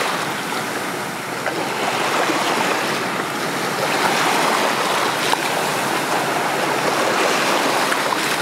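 Small waves washing up onto a sandy shore and around a rock: a steady rushing wash that swells and eases.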